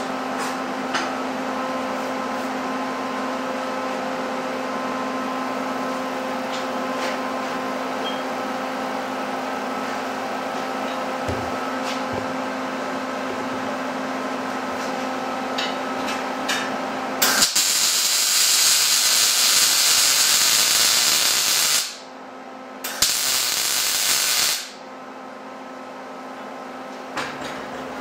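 Electric arc welder laying beads on a steel square-tube frame: a steady hum, then the welding arc hissing and crackling for about four and a half seconds, then again for about a second and a half. The welds turn the frame's tack welds into full welds.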